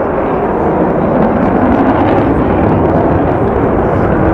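Jet noise from the Avro Vulcan B2 bomber XH558's four Rolls-Royce Olympus turbojets in flight overhead: a loud, deep, steady rushing roar that slowly grows louder.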